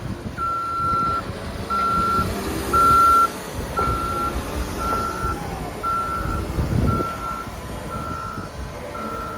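Backup alarm of a Caterpillar 924K wheel loader beeping steadily, one tone about every second, as the loader reverses with its engine running underneath.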